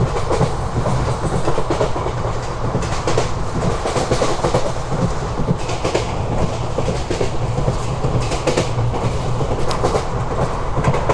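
ICF passenger railway coach running on the track: a steady low rumble of wheels on rail, with irregular clattering clicks from the wheels passing over rail joints.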